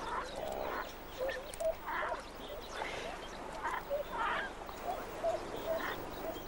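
Duck giving repeated short quacking calls, about one or two a second, over a faint background hiss.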